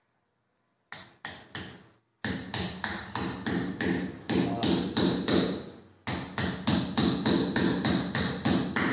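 Hammer blows driving a metal anchor up into a drilled hole in a reinforced-concrete ceiling slab. After about a second of quiet come three strikes, a short pause, then steady, rapid hammering at about three to four blows a second, each with a short metallic ring.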